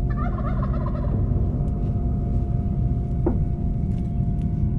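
A wild turkey gobbling once, a quick rattling gobble lasting about a second at the start, over a steady low rumble.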